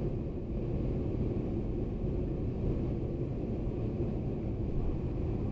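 Car driving, its tyre and engine noise a steady low rumble heard from inside the cabin.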